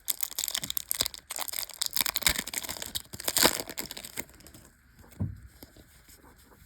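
Crinkling and crackling of a foil Yu-Gi-Oh booster pack wrapper being handled and opened, dense for about four seconds and loudest near the end of that stretch, then dying down to a few faint rustles.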